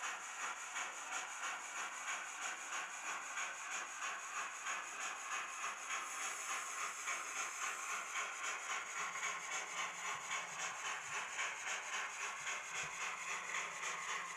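TT-scale model steam locomotive running slowly on its track, with an even chuffing hiss of about two beats a second.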